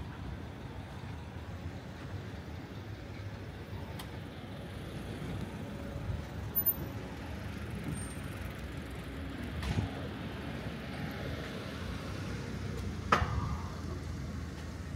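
Road traffic: cars passing along a street, a steady low rumble of engines and tyres. A few short knocks stand out, the sharpest about thirteen seconds in.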